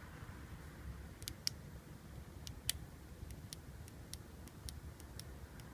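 Mitsubishi Lancer Evolution 560cc fuel injector clicking faintly as it is pulsed by hand from a 9-volt battery clip. The clicks come irregularly, about two to three a second: the injector's solenoid is still firing.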